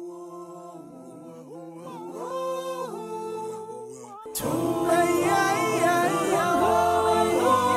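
Unaccompanied vocal music: several voices singing held notes together in harmony. It starts softly and swells much louder and fuller about four seconds in.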